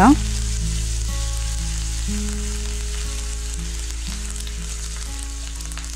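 Whole spices and curry leaves sizzling in hot oil in a pan while a spoon stirs them; the sizzle slowly fades.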